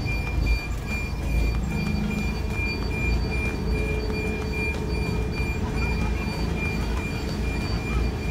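Mercedes-Benz tractor unit's diesel engine running with a steady low rumble, heard from inside the cab as the truck creeps slowly through a turn with a container trailer. A thin, steady high tone sits above it.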